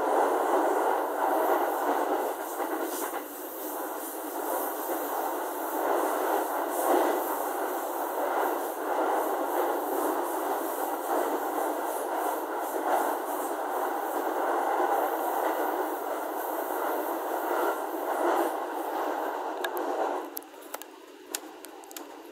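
JR East E231 series commuter train running at speed, heard from inside the car: a steady rushing running noise with faint clatter. The noise falls away sharply about twenty seconds in, with a few sharp clicks.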